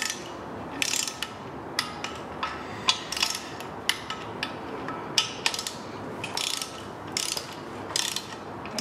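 Torque wrench on flexplate bolts ratcheting and clicking in sharp, unevenly spaced clicks, about one to two a second, during the first tightening pass at 15 foot-pounds.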